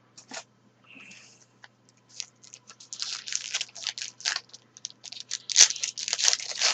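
Foil trading-card pack wrapper being torn open and crinkled, a run of rustling, crackling bursts that starts about two seconds in and grows denser and louder.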